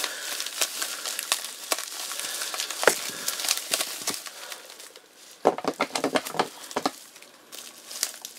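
Bubble wrap and a clear plastic bag crinkling and crackling as they are picked at and peeled open by hand. The crackling goes quieter about two-thirds of the way in, then comes back as a short run of sharper crackles and clicks.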